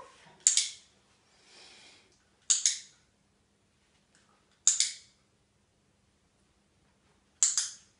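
A hand-held dog-training clicker pressed four times, about two seconds apart. Each press gives a sharp double click-clack. It is the marker signal telling the dog it has done the right thing.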